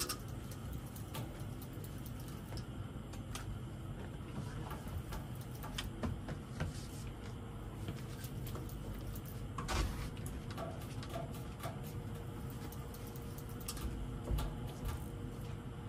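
Fishing reel being cranked while playing a hooked fish on a tight line: irregular ticks and clicks from the reel over a steady low rumble.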